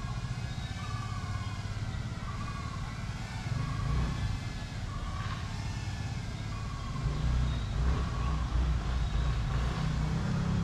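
A steady, choppy low rumble of outdoor background noise, louder in the last few seconds. A short high call repeats roughly once a second or so over it.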